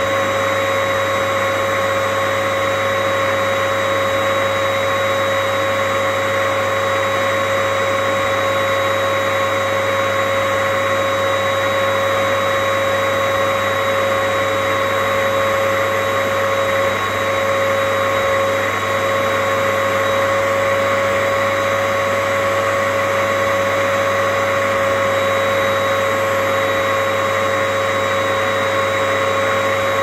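Vacuum cleaner running steadily: an even rush of air with a constant motor whine, barely changing, with one brief dip about halfway through.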